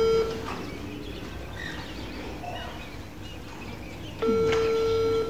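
Ringback tone of an outgoing phone video call, from the phone's speaker: a steady beep about a second long, heard ending just after the start and again about four seconds in, the caller still waiting for an answer.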